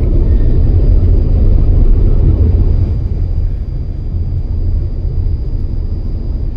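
Steady low road and tyre rumble heard inside a car's cabin at freeway speed, a little quieter from about three seconds in, with a faint high steady whine.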